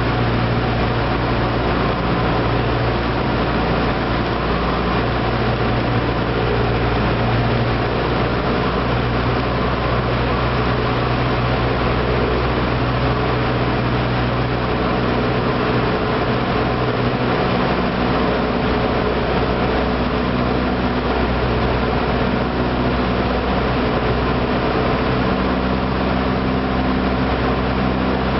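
Cessna 172's piston engine and propeller droning steadily in cruise flight, heard from inside the cabin with a constant rush of airflow over the airframe.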